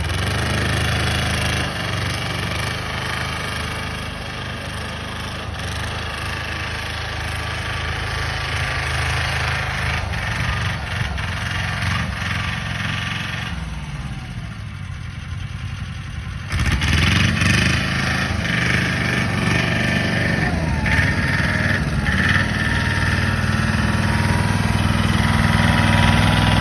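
A Tornado Atmaca patpat's 22 hp water-cooled diesel engine running, its speed rising and falling a few times. It gets abruptly louder about two-thirds of the way through.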